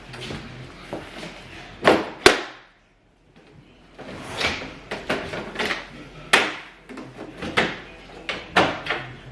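Knocks and clunks of a small portable DJ table being set up and handled: two sharp knocks about two seconds in, a brief gap of silence, then a run of irregular knocks and clatters.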